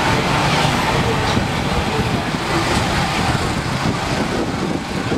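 Steady amusement-park background din, an even wash of noise with no sudden events.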